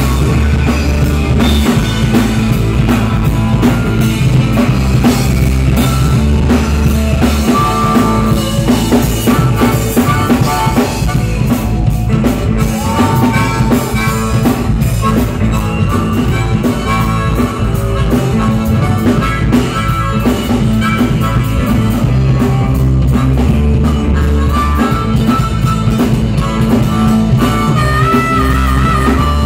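Live rock band playing loud and without a break, electric guitar over a drum kit, heard from the dance floor.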